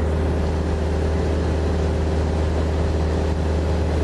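Light aircraft's engine droning steadily in flight, heard from inside the cabin, a loud constant deep hum with a few held higher tones above it.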